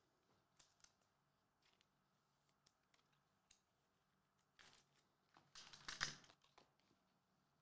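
Faint clicks and rustles of a hand handling trading cards on a desk mat, with a louder cluster of handling noises about five to six seconds in.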